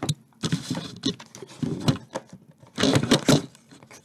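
Close handling noise: rustling with sharp knocks and clicks, in two loud bursts about half a second and three seconds in.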